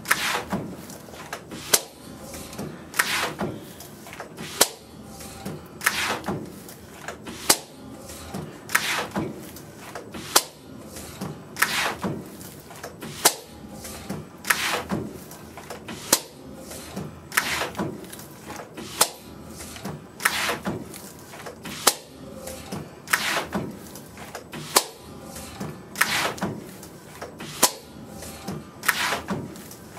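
Home-built pleating machine cycling, its pleating bar knocking sharply about every second and a half as it folds and squashes HEPA filter material into pleats. The heaters are off, so the material goes through cold and stiff.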